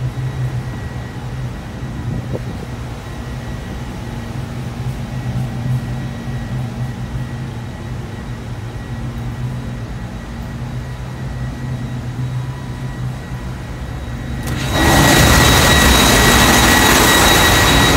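Ship's machinery heard first as a steady low hum inside the engine control room. About fifteen seconds in it jumps suddenly to a very loud, dense engine-room din with a steady high whine, the full noise of the running main engine and auxiliaries.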